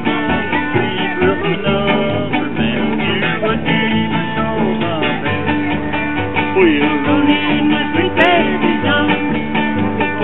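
Country-style music with guitar and a singing voice.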